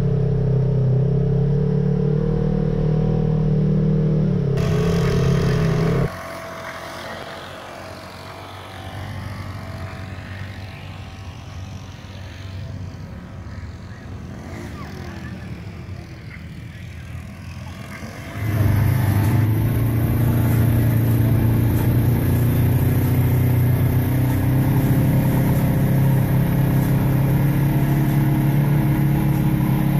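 A Polaris RZR side-by-side's engine runs steadily, heard from inside the cab. About six seconds in, it cuts to a much quieter stretch of open-air background sound. About eighteen seconds in, a side-by-side engine comes back, running steadily and loud.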